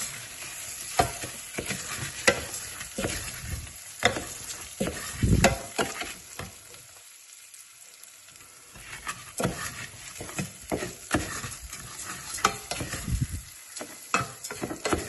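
Risotto rice being stirred and toasted in a hot pan: a light sizzle with repeated scrapes and taps of the stirring utensil against the pan, easing off for a couple of seconds about halfway through. The rice is being cooked out until translucent, before the wine goes in.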